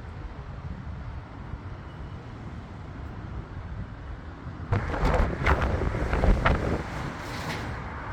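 Strong wind buffeting the microphone as a steady low rumble. A little before five seconds in, a louder gust sets in with crackling bursts.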